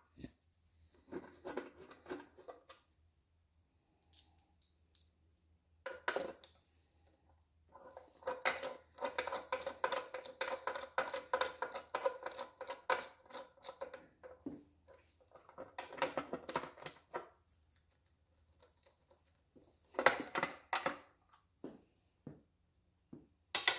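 Valve cover bolts being turned in with a nut driver: several bursts of quick, light metallic clicking and scraping, with pauses between them.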